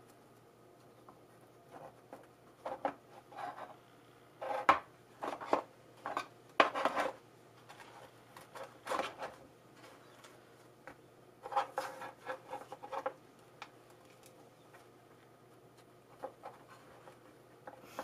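Fingers pressing and packing potting soil down around herb cuttings, so no air is left: irregular short scratchy rubbing sounds with pauses between them.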